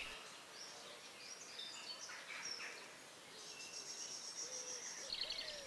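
Several wild birds singing and chirping, with a fast high trill in the middle and a quick rattling run near the end.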